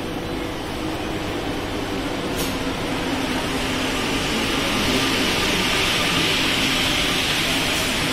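Two MPL 85 rubber-tyred metro trains passing each other in a station. A steady rumble and hiss swells as the second train comes in, with a faint low hum under it and a single click about two seconds in.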